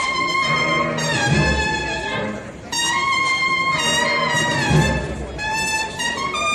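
Brass band playing a Holy Week procession march, trumpets carrying the melody in long held notes over occasional deep drum beats.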